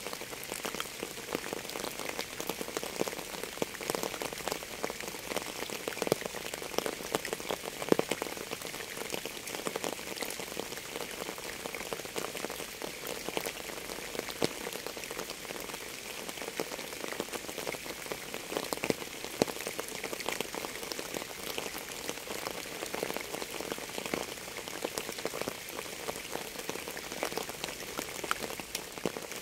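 Steady rain falling on a hard surface, with many separate drop hits heard through the hiss.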